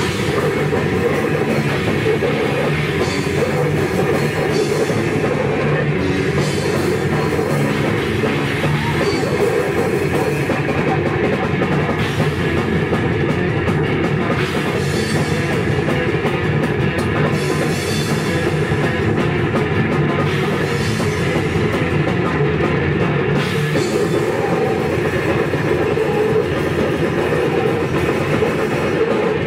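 Live heavy rock band playing loud and without a break: electric bass, guitar and a drum kit with cymbals.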